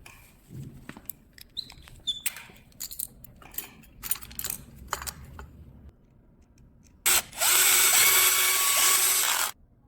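Light clicks and taps of brake parts and tools being handled. Then, about seven seconds in, a power driver runs steadily for about two and a half seconds and stops suddenly, driving the brake bolts.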